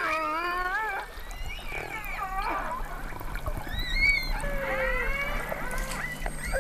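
Killer whales calling underwater: a run of calls, one after another, each bending up and down in pitch, with some overlapping, over a low steady hum.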